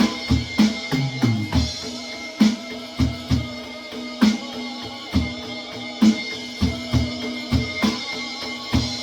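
Roland electronic drum kit played along with a pop-rock backing track with guitar: a steady groove of kick and snare hits, with a short fill down the toms about a second in.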